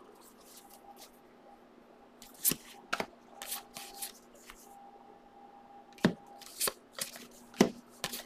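Football trading cards being handled: a stack is lifted from the box and flipped through by hand, giving several short, sharp snaps and slides of card stock at irregular intervals. A faint steady hum runs underneath.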